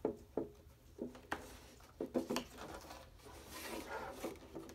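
Hands handling a clear plastic cutting plate and a foam-faced lace die on a roller die-cutting machine's metal bed: a series of light taps and knocks, with a brief rubbing slide a little after three and a half seconds in.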